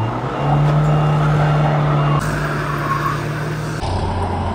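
A farm tractor and a Mahindra Scorpio SUV run hard under load, straining against each other on a tow rope, with wheels spinning in the dirt. The steady engine note shifts about two seconds in and changes abruptly near the end.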